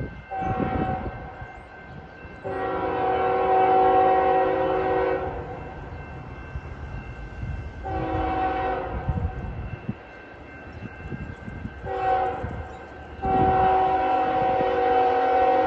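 Multi-chime air horn of an approaching Canadian National freight locomotive sounding a crossing sequence of five blasts: a short one, a long one of about three seconds, two short ones, then a long one still held at the end. A low rumble of the oncoming train runs underneath.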